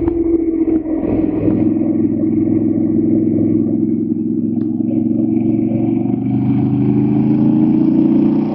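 Motorcycle engine running under way on a winding road, its note easing a little in the first second, then climbing steadily over the last three seconds or so as the bike accelerates.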